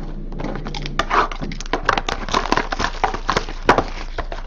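Card packaging being handled and opened: dense, irregular crinkling and crackling with sharp clicks, starting about a second in.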